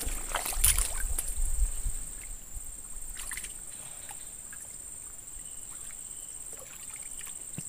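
Swamp water sloshing and splashing as a giant snakehead (toman) is lowered by hand and released, loudest in the first two seconds. A steady high insect trill runs underneath.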